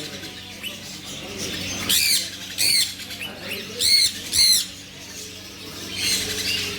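Bird squawking: four sharp, high calls in two pairs, about two and four seconds in, over a faint steady low hum.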